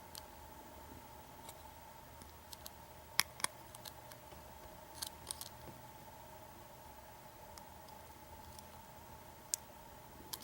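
Faint, irregular small metallic clicks of a hook pick working the serrated pins of an American 700 series padlock under tension, with a cluster of clicks a few seconds in and a few scattered ones later.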